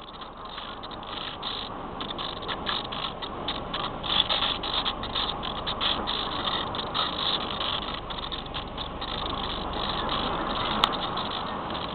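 Rushing noise of airflow and the electric motor and propeller of a SpyHawk FPV plane in flight, picked up by its onboard camera. It is a steady hiss with a flickering texture that swells a little in the first couple of seconds.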